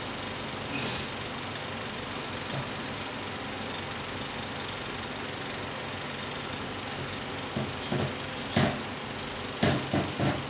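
Steady machine hum, with a run of sharp metal clunks and knocks in the last few seconds as the lever of a manual French fry cutter is worked to push a potato through the blades.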